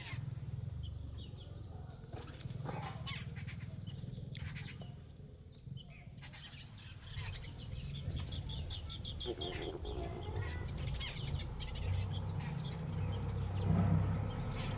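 A bird giving short, high, falling chirps three times, over a steady low rumble and scattered clicks.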